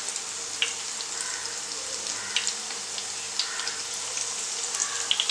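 Cauliflower hash brown patties shallow-frying in oil in a nonstick pan: a steady sizzle with scattered crackles and pops.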